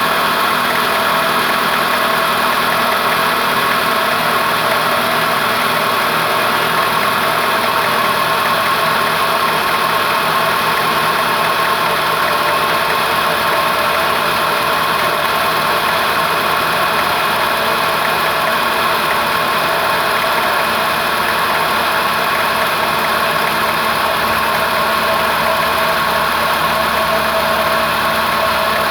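Renault Logan 1.6 8-valve four-cylinder engine idling steadily after a cold morning start, with a light metallic tapping in the background, like a pin striking metal. The owner says the noise goes away once the engine warms up and fears it is pinging (detonation), though mechanics have told him it is normal.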